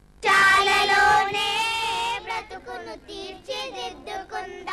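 Children singing: a long held note for about two seconds, starting a moment in, then shorter sung phrases.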